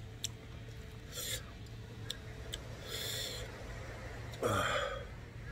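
Quiet eating sounds of a man having ramen noodles: a few short slurps and sharp breaths through the nose, with chewing and a couple of light clicks.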